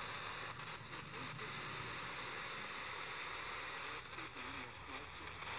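FM radio receiver tuned to 88.8 MHz giving a steady hiss of static: a distant sporadic-E signal fading down into the noise. Faint snatches of a voice surface briefly near the end.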